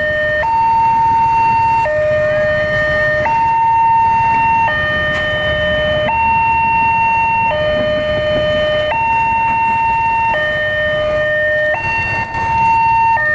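Railway level-crossing warning alarm sounding an electronic two-tone signal: a higher and a lower tone alternate, each held about a second and a half, and the signal cuts off at the end. The low rumble of a passing passenger train runs beneath it.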